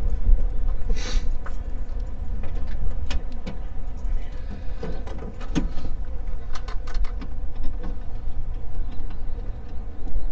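Mazda 12A two-rotor rotary engine of a 1973 second-generation Luce, just started and running at idle: a steady low rumble with many irregular sharp ticks.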